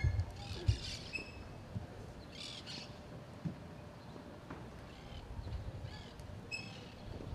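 Birds calling a few times in short, harsh bursts over a faint low background rumble.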